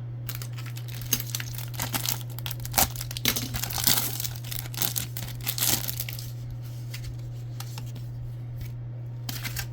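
Foil trading-card pack wrapper being torn open and crinkled in the hands. The crackling is densest for the first six seconds or so, then thins out to a few rustles.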